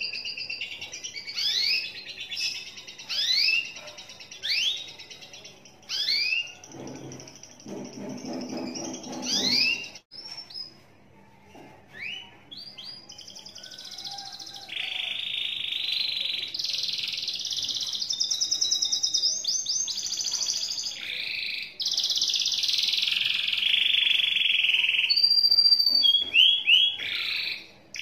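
Domestic canary singing: a run of quick, sharply rising chirps, then long rolling trills held for several seconds at a time (the long continuous 'ngekek' song), ending in a few short chirps.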